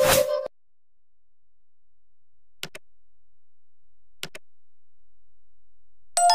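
A sung note ends with a short burst of noise, then two pairs of computer-mouse click sound effects, and a bright bell chime starts near the end.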